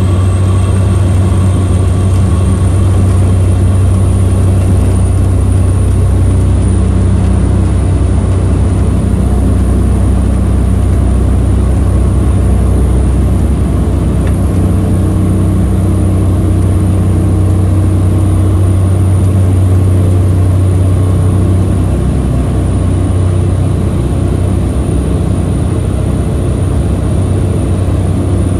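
Cabin noise of a Cessna 208 Grand Caravan's single Pratt & Whitney PT6A turboprop at takeoff power during the takeoff roll and liftoff: a loud, steady propeller drone with a thin high turbine whine that rises a little in the first few seconds and then holds.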